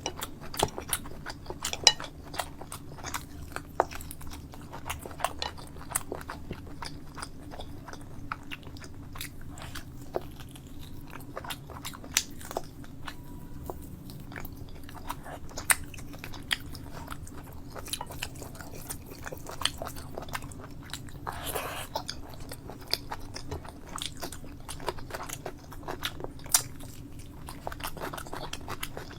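Close-miked eating: a person chewing and biting, with frequent wet mouth clicks and crunches over a steady low hum, and a brief rush of noise a little past two-thirds through.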